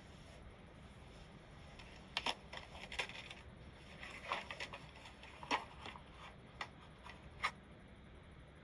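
Computer keyboard keystrokes: an irregular run of light clicks starting about two seconds in and stopping after about seven and a half seconds, over a faint steady room hum.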